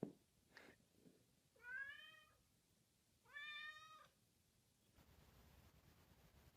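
A cat meowing twice: two drawn-out meows about a second and a half apart, after a few soft knocks near the start.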